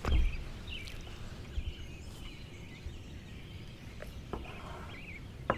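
Kitchen knife slicing an elk heart on a wooden cutting board: a low thump just after the start, then a few sharp taps of the blade on the board. Birds chirp faintly in the background.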